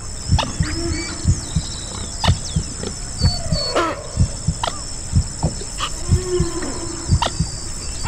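A heartbeat beating steadily in lub-dub pairs, laid under humpback whale song: sliding moans and whistles that rise and fall in pitch, with a few sharp clicks.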